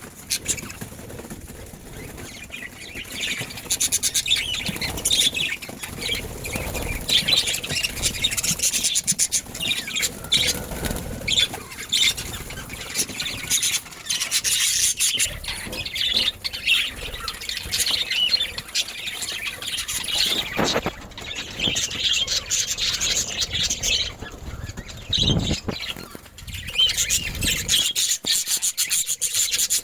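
Budgerigars chattering in many short, quick chirps, mixed with rustling and scratching sounds.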